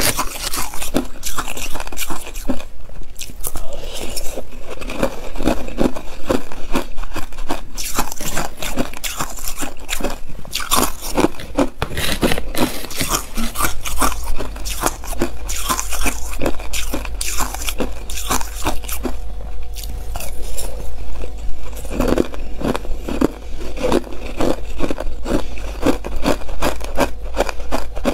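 Hard clear ice being bitten and crunched between the teeth, a dense, unbroken run of sharp cracks, mixed with a metal spoon scraping and scooping through crushed ice in a plastic tub.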